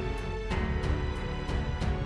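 Background music with a steady beat over sustained tones and a bass line.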